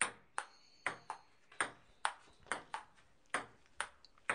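A series of short, sharp pings, about two to three a second at uneven spacing, each ringing briefly.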